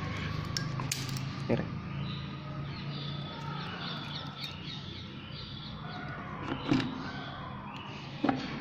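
Handling clicks of a motorcycle side panel, with a sharp click near the end as the key is worked in the panel's lock. Birds chirp in the background over a steady low hum.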